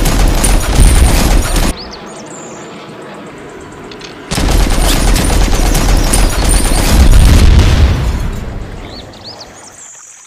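Dubbed machine-gun sound effect firing in two long, rapid bursts. The first cuts off about two seconds in, and the second starts about four seconds in and dies away toward the end.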